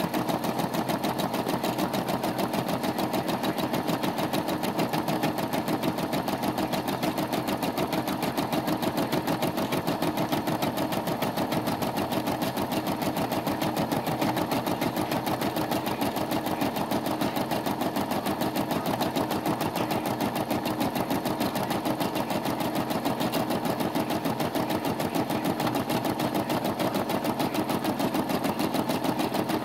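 Brother SE425 computerized embroidery machine stitching a design, its needle running in a rapid, steady chatter without a break.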